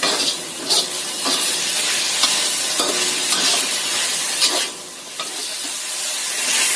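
Chicken pieces stir-fried in a black wok in oyster and soy sauces, sizzling steadily while a metal spatula stirs them and scrapes and taps against the wok. The sizzle drops briefly about five seconds in.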